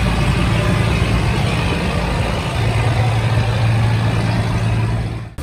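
Engine of a wooden river cargo boat running steadily as it passes close by, a low hum over the churn of its propeller wash. It cuts off suddenly just before the end.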